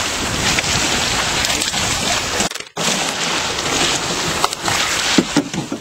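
Waves sloshing against a rocky shore and the side of a small boat, with wind buffeting the microphone. The sound drops out briefly about two and a half seconds in.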